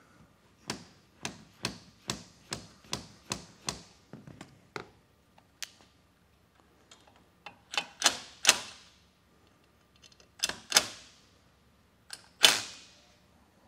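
A mallet tapping a wooden framing shim further under a railing post's metal base plate, about ten sharp knocks at two or three a second, to shim the post toward plumb. A cordless driver then runs the base-plate mounting screws down in three short bursts, which are louder than the taps.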